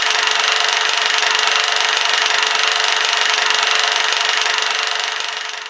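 A steady hiss of static-like noise with a fine, rapid crackling grain. It fades out near the end.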